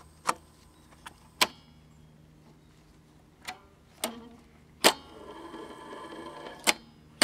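Sharp mechanical clicks as the controls of an Electra TP500 portable reel-to-reel tape recorder are switched by hand: the rotary rewind/stop/forward knob and the play/record slide. There are about eight clicks spread over several seconds, with a faint steadier sound from the machine between them in the second half.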